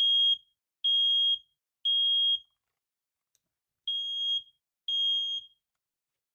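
USI SS-770 smoke alarm sounding its test: loud, high-pitched beeps in the temporal-three pattern, three beeps about a second apart, a pause, then two more before it stops. The alarm works.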